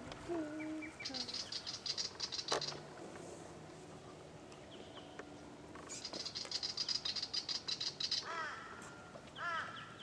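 Wild birds calling: two spells of rapid, high chattering trills, then near the end two quick runs of looping whistled notes.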